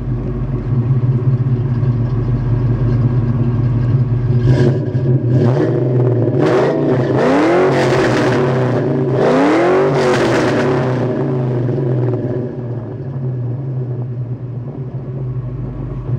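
1996 Ford Mustang GT's 4.6-litre SOHC V8 through BBK long-tube headers, an x-pipe and a Flowmaster cat-back exhaust, idling. About four seconds in, it is blipped a few times, then revved twice, each rev rising and falling back, before settling to idle again.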